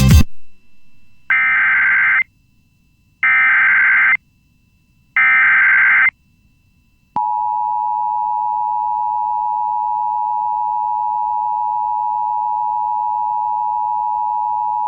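Emergency Alert System tones: three one-second bursts of SAME digital header data, a second apart, which code the start of a Civil Emergency Message. About seven seconds in, the steady two-tone EAS attention signal begins and holds.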